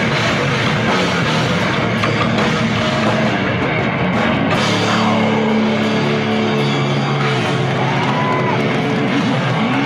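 A live rock band playing loud: drum kit with crashing cymbals and distorted electric guitar. About halfway through, held notes ring out steadily over it, with a few sliding pitches.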